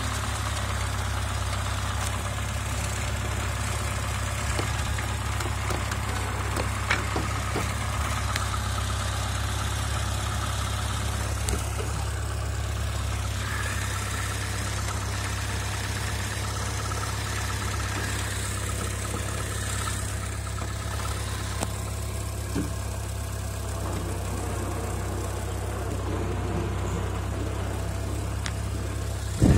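Small air-cooled engine of a riding lawn tractor running steadily as the tractor drives over grass, with a few light knocks and a sharper one near the end.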